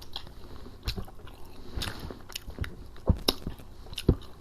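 Close-miked eating: wet chewing and lip smacks with a few sharp bites or crunches, typical of a mukbang meal of fried chicken and fish with sauce.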